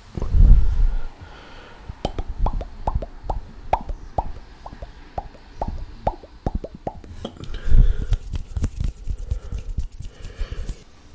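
Close-miked mouth sounds: a steady series of short wet pops and clicks, about two a second, with a louder low breathy puff near the start and another about eight seconds in.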